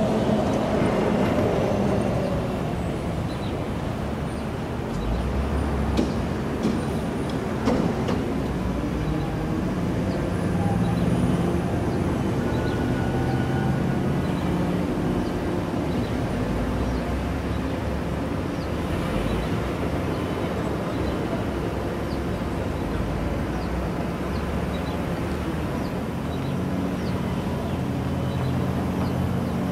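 Vehicle engines running steadily as a Grumman Olson step van rolls slowly away, with a few sharp knocks about six to eight seconds in.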